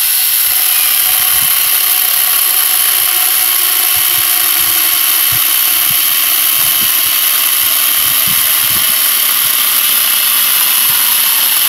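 Angle grinder fitted with a chainsaw bar-and-chain attachment, running at steady speed with a high-pitched whine as its chain cuts through a log.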